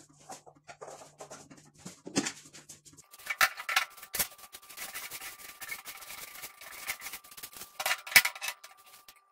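Metal parts of a gas stove top being handled and lifted off: irregular clicks, knocks and scraping on the steel hob, with louder clatters about four and eight seconds in.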